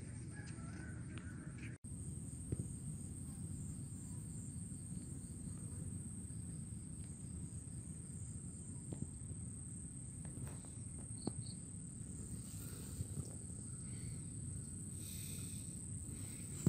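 Outdoor ambience: a steady, high-pitched insect trill over a constant low rumble, with a few faint clicks.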